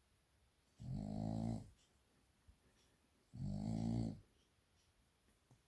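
A sleeping dog snoring: two even snores, each just under a second long, about two and a half seconds apart.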